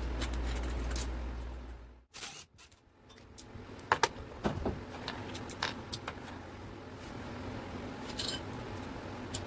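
Sharp metallic clinks and taps of hand tools and engine parts being handled during a motorcycle engine teardown, a few louder strikes among lighter ones. A low steady hum cuts off about two seconds in.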